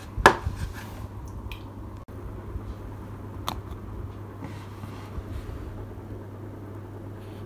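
Small plastic model-kit parts and a hobby tool being handled on a cutting mat: a sharp click just after the start and another about three and a half seconds in, with a few faint taps, over a steady low hum.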